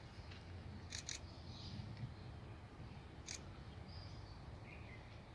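Faint outdoor ambience of a crowd standing silently in prayer: a steady low rumble, a quick double click about a second in and a single click past three seconds, and faint bird chirps.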